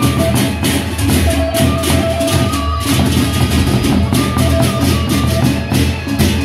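Lombok Sasak gendang beleq ensemble playing: large double-headed barrel drums beaten with sticks over a dense, fast rhythm of small hand-held bossed gongs, with a few sustained tones sounding in and out.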